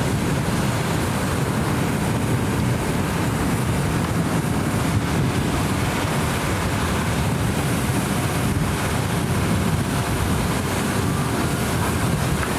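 Steady, loud rumbling noise of wind buffeting the microphone, heaviest in the low end.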